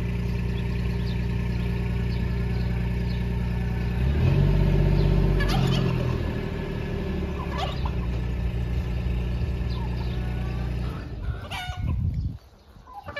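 Small vehicle engine running, revving up around four seconds in as it pulls the trailer forward, then fading away near the end. Turkeys gobble over it several times.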